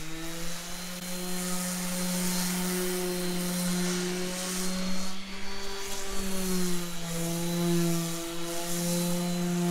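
Electric random orbit sander running on a wooden tabletop, sanding the old finish off: a steady motor hum over a gritty hiss, dipping slightly in pitch about six seconds in.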